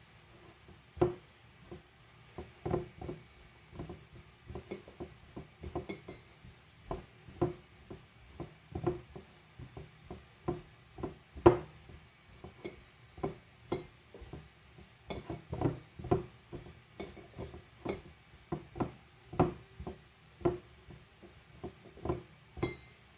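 Hands working crumbly shortcrust pastry dough in a glass bowl, gathering it with the fingertips rather than kneading: a run of irregular soft knocks against the glass, about one or two a second, with one louder knock about halfway through.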